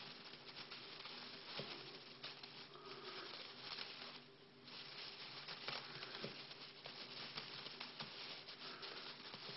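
Hamster moving about, making faint, irregular small clicks and scratches, over a steady low hum.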